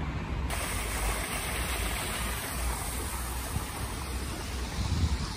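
Steady outdoor hiss of a rainy city square: rain and wet-road traffic noise, with a low rumble underneath.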